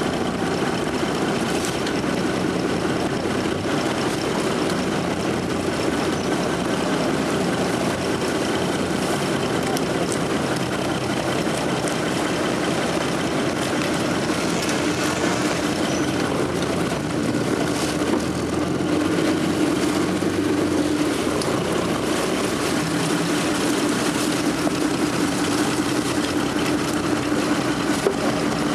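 Small wooden boat's engine running steadily, its note dropping a little about halfway through.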